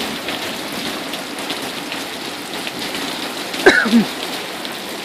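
Steady rain falling and splashing on surfaces, with one brief pitched sound that bends up and then down about three and a half seconds in.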